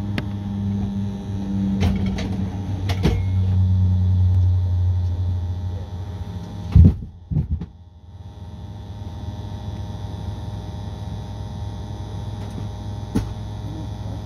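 Cabin drone of a Saab 340B turboprop during engine start: a steady low hum for about six seconds. Then a few loud knocks about seven seconds in, after which the hum drops out for a moment and comes back quieter.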